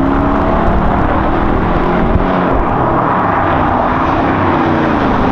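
Car engine and exhaust running loud and steady under way, its pitch sagging at the start and rising and falling again about four seconds in as the throttle changes.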